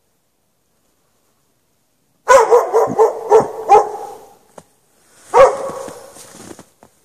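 Dog barking: about two seconds in, a quick run of about five barks, then a single bark a second or so later.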